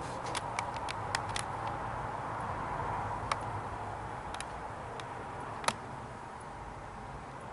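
Steady background hiss with scattered sharp clicks and light taps: a quick run of them in the first second and a half, a few more later, and the sharpest one about two-thirds of the way through.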